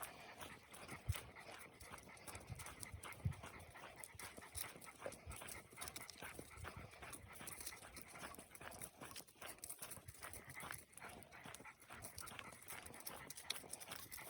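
Faint, irregular footsteps on a trail, with a dog panting.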